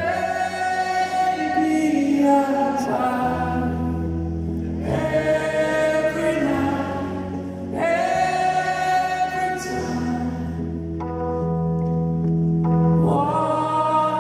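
Live band music: a male lead singer sings a slow ballad over sustained keyboard chords and a bass line that steps between held notes.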